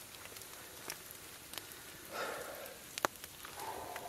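Wood campfire crackling, with scattered sharp pops and one louder pop about three seconds in.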